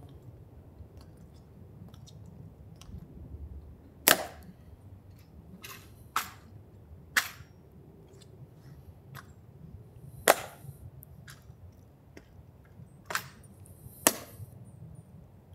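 A series of sharp clacks at irregular intervals, six loud ones and fainter ticks between them, each short with a brief ring after it.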